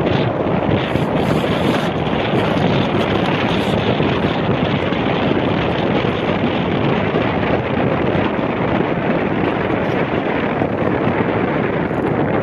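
Steady wind noise buffeting the microphone aboard a sailing boat in gusty wind, an even, loud noise with no engine note or distinct knocks.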